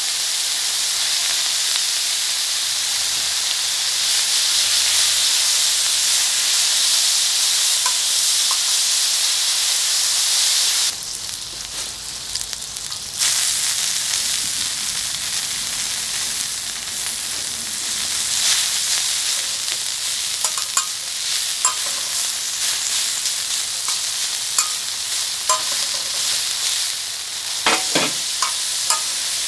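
Pork belly frying and sizzling, with a steady hiss that dips for a couple of seconds about eleven seconds in. Scattered pops and crackles from the fat grow more frequent toward the end.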